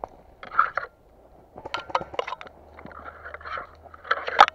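Irregular crunching and rustling close to the microphone, in several bursts with a few sharp clicks. The loudest burst comes near the end. It is the sound of a player moving fast over rough ground in gear.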